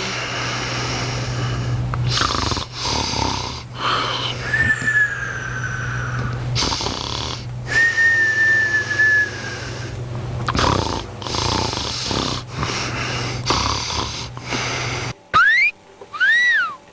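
A sleeping cat snoring, with a breath about every second and two drawn-out whistling tones in the middle. Near the end the snoring stops and a few quick rising-and-falling high whistles sound.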